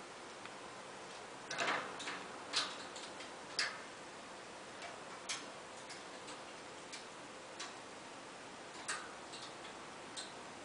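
African grey parrot making about a dozen short, sharp clicks and taps at irregular intervals. The loudest cluster comes about one and a half seconds in.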